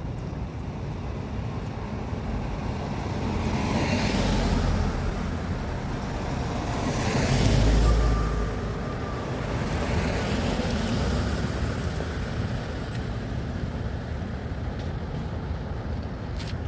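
Road traffic: cars passing by one after another, three slow swells with the loudest about eight seconds in, over steady traffic noise.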